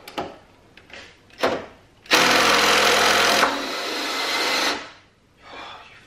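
A couple of knocks, then a cordless impact driver runs for about two and a half seconds on a strut top-mount bolt, dropping in level partway before it stops. The bolt does not come undone.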